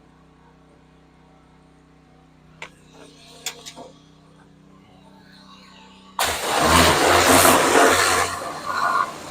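Pressure washer: a low steady running hum and a few sharp clicks, then about six seconds in a loud rushing spray starts suddenly.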